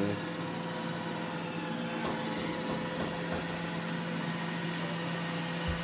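iRobot Roomba E6 robot vacuum running with a steady motor hum and a constant whine. A few faint knocks sound in the middle, and a short low thump comes near the end.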